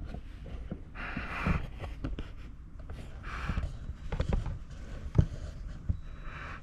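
Scattered light metallic clicks and knocks from a dial indicator and its mount being repositioned on an open differential housing, with one sharp knock about five seconds in.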